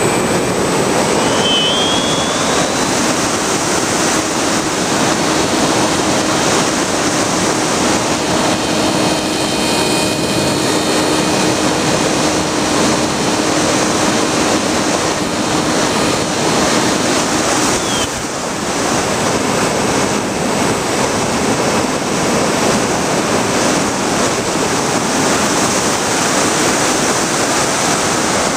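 Bixler RC plane in flight heard from its onboard camera: a loud, steady rush of wind over the microphone mixed with the electric motor and propeller, with a faint whine on top. A brief rising whine comes about two seconds in, and the level dips briefly about two-thirds of the way through.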